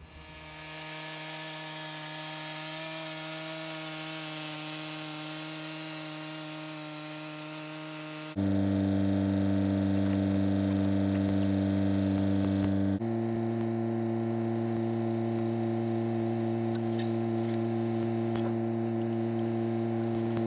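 Stihl MS 661 chainsaw running steadily in an Alaskan mill as it cuts through a walnut log. Its pitch drops abruptly and it gets louder about 8 seconds in, then its pitch steps partway back up about 13 seconds in.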